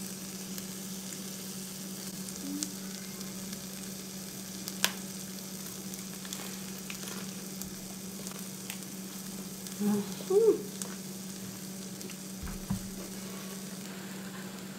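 Marinated beef sizzling steadily on an electric tabletop grill, over a constant low hum. A sharp click comes about five seconds in, and short hums of a person eating rise over it around ten seconds in.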